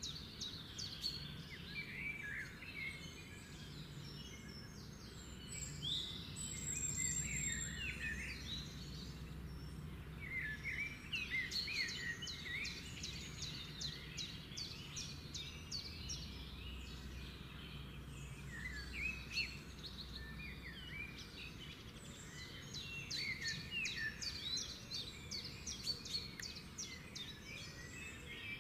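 Several birds chirping and calling, with many short call notes and fast rattling trills coming and going, over a faint low steady hum.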